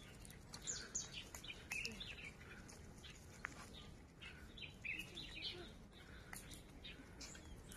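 Small birds chirping faintly in the trees, short scattered calls coming one after another.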